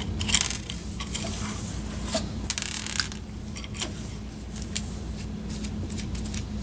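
Small hard parts being handled by hand: scattered light clicks, taps and short scraping rattles as a ski and its screw-and-nut hardware are picked up and fitted, over a steady low hum.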